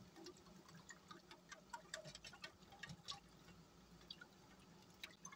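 Wire whisk stirring tomato soup in a stainless steel saucepan: faint, irregular light clicks of the wires against the pan, several a second.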